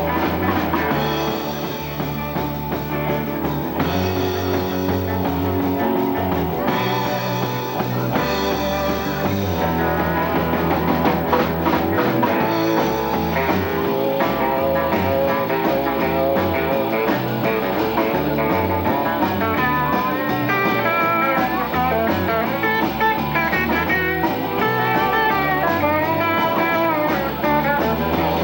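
Live rock band playing an instrumental break, with electric guitar, bass and drums. From about two-thirds of the way through, the lead guitar's notes bend and waver.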